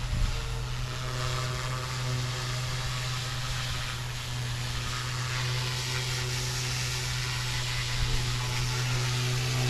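FW200 RC helicopter in flight, its direct-drive electric motor and rotor making a steady low hum with a faint higher whine, over a steady hiss of wind.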